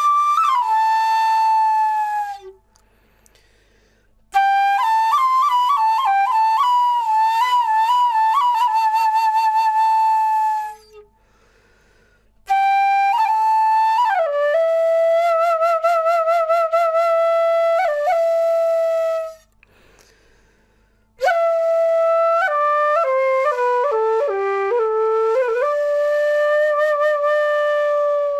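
Solo flute melody in slow phrases of several seconds, separated by short pauses, with vibrato on long held notes and quick ornamented runs between them.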